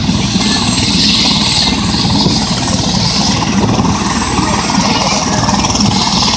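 Eurocopter EC130 helicopter running on the ground, its turbine and main rotor turning: a steady loud rush with a fast rotor beat underneath.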